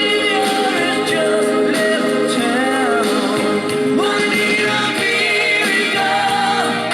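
Rock song with male singing played from a vinyl record on a Philips GF-723 turntable.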